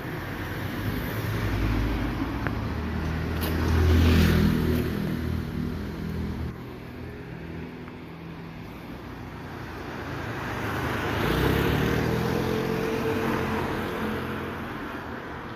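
Street traffic: motor vehicles drive past with engine and tyre noise, swelling to loudest about four seconds in and again about eleven seconds in.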